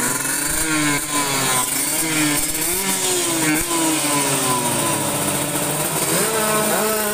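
Tuned drag-bike engines revving, their pitch rising and falling in repeated blips. Near the end more than one engine runs at different pitches at once.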